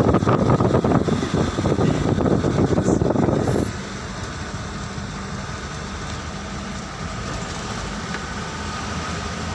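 Wind buffeting the phone's microphone from a moving vehicle, cutting off suddenly a few seconds in. After that, a steady engine and road hum heard from inside the vehicle.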